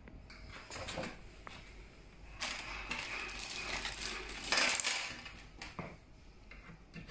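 Plastic bag crinkling and small plastic Lamello connector fittings clicking against each other as a hand rummages through a bag of them, mostly from about two and a half to five seconds in, with a few lighter clicks before.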